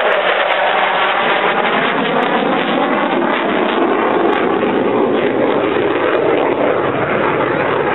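Fighter jet engine noise: a loud, steady rush with a pitch that slowly shifts as the jet flies past and away.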